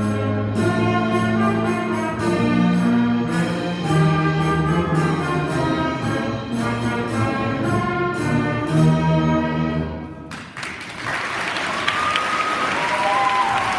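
Beginning school concert band, brass and winds, playing the last bars of a holiday piece, which ends about ten seconds in. Audience applause follows, with a few high calls over it.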